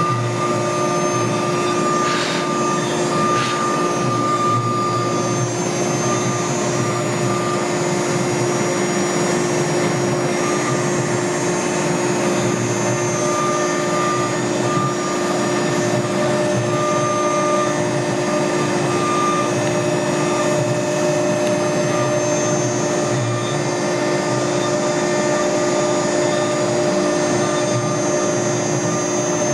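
Camaster Stinger CNC router running steadily as its bit carves cherry wood: a loud, constant machine hum and whine, with a higher tone that comes and goes.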